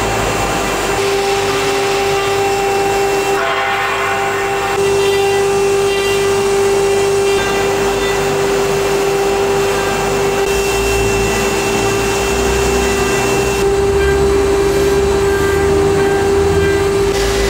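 ATC CNC wood router running, its spindle giving a steady high whine over a dense mechanical hiss. A patch of harsher noise comes about four seconds in.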